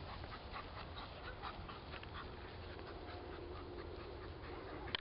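A Labrador retriever panting quickly and faintly in a steady rhythm while on the move.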